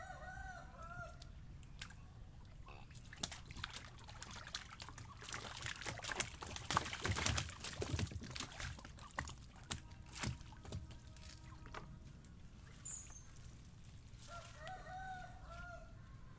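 Large catfish flapping and slapping on the wet floor of a narrow boat, a run of sharp knocks and splashes that is loudest in the middle. A chicken clucks briefly at the start and again near the end.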